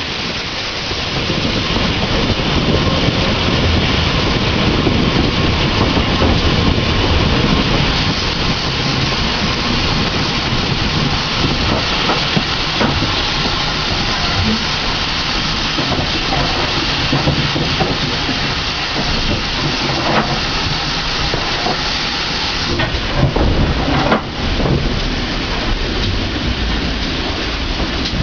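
Steam tank locomotive and train running along the line, a steady rushing hiss of the engine and wheels on the rails mixed with wind on the microphone. A few sharp knocks come near the end.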